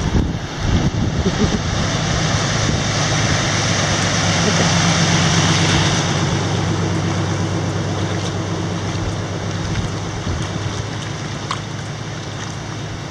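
Floodwater rushing and churning, loudest a few seconds in, with a steady low hum underneath and some wind buffeting on the microphone at the start.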